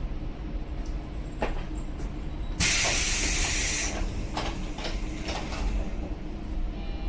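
115-series train's pneumatic sliding doors closing: a loud hiss of air for over a second, then several knocks as the door panels shut, over the steady low rumble of the standing train.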